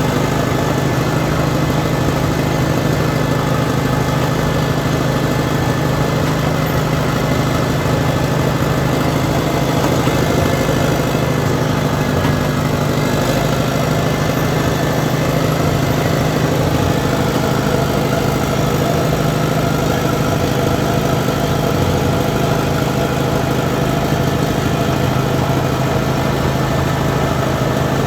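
An engine running steadily, with little change in pitch or level.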